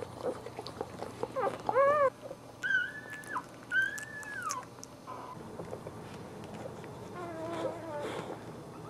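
Newborn Boxer puppies squeaking and whimpering: a short squeal that rises and falls about two seconds in, then two longer high, thin cries, and a wavering whine near the end.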